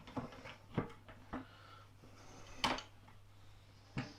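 Four scattered knocks and clunks, the loudest near the middle, as an electric scooter's rear wheel is handled and fitted into place, over a faint steady low hum.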